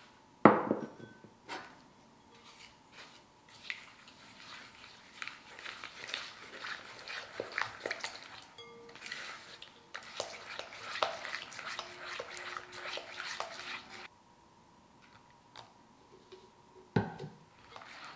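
A sharp knock as a small ceramic bowl is set down. Then a hand whisk beats eggs and sugar in a glass bowl for about ten seconds, with rapid clicking and scraping against the glass, and stops suddenly. Another single knock comes near the end.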